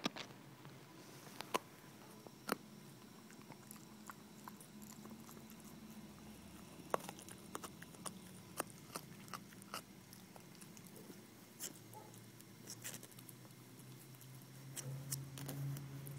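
A dog gnawing a rawhide chew: irregular crunches and clicks of teeth on the chew, with a low rumbling sound swelling near the end.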